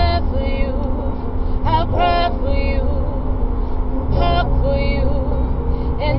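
A woman singing in short, wavering phrases inside a moving car, over the steady low rumble of the car on the road.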